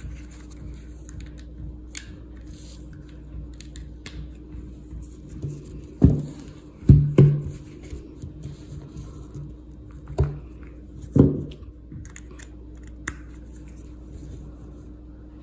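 A low steady hum with light clicks and rustles, broken by about five dull thumps in the second half, two of them close together.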